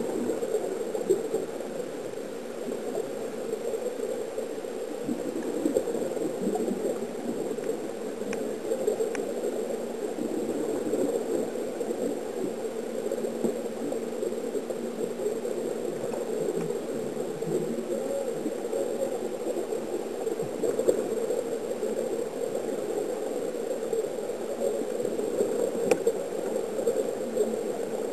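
Steady, muffled underwater bubbling and gurgling of air streaming out of sea-walking diving helmets, heard through water.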